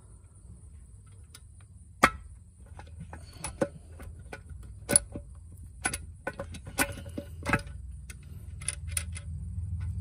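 Irregular sharp metallic clicks and knocks as a DCT470 transmission's aluminium oil pump is rocked and tugged by hand against the case, still stuck in place. The sharpest knock comes about two seconds in.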